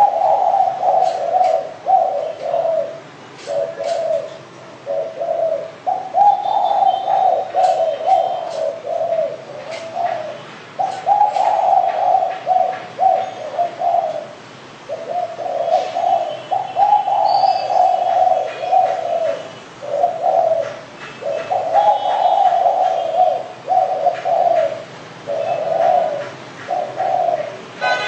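Spotted dove (derkuku) cooing over and over in low, burbling phrases with short pauses between them.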